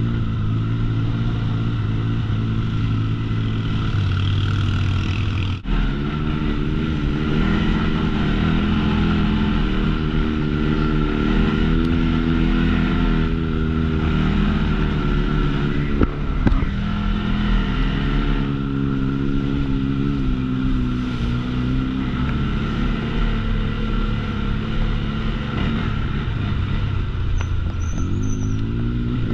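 CFMOTO CForce 625 ATV engine running while being ridden, its pitch rising and falling with the throttle. The sound dips briefly about five and a half seconds in, and a sharp knock comes around sixteen seconds.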